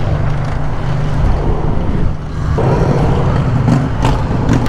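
Steady, loud rush of wind and road noise from riding an electric dirt bike through city traffic.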